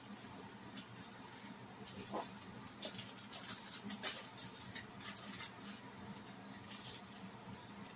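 Aluminium foil crinkling and rustling faintly as a fried green plantain slice is pressed flat under it by hand and the foil is opened, with louder crinkles about three to four seconds in.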